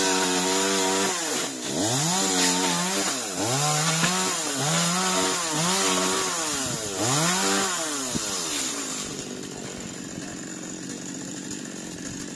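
Chainsaw revved up and down about six times while cutting dry coconut fronds, then dropping back to a lower, steadier run for the last few seconds.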